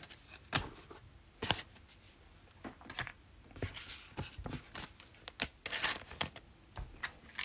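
Trading cards being handled and flipped through, with scattered soft swishes and light clicks.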